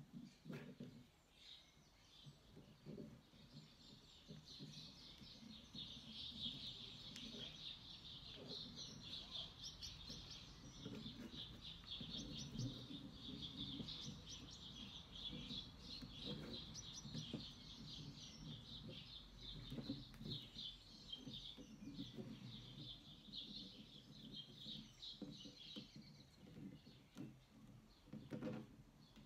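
Faint, continuous scratching and clicking of chicken wire being handled and twisted together with pliers, with occasional soft knocks of the wire against the work surface.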